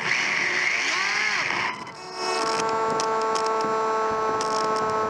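Electric motor of a Sakura D4 RC drift car whining, its pitch rising and falling with the throttle, then dropping away about two seconds in. It is followed by a steady electric whine held at one pitch while the car sits still against the wall.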